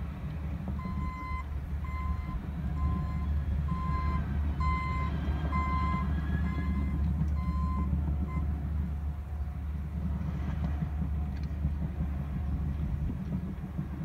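Diesel engines of a Cat D6 bulldozer and a dump truck running, a steady low rumble, with a heavy-equipment backup alarm beeping about once a second as a machine reverses; the beeping stops about eight seconds in.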